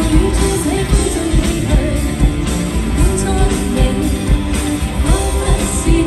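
Live pop song: female lead vocals sung over a band of electric guitars and drums with a steady beat, heard through a concert sound system from the audience.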